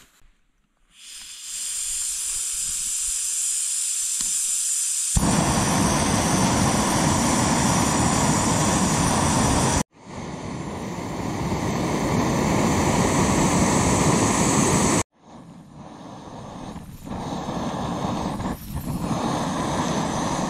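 Canister gas stove burning under a mug of water: a steady hiss starts after a moment, then from about five seconds in becomes a much louder, fuller rushing noise. The sound breaks off abruptly twice, and the last part is quieter.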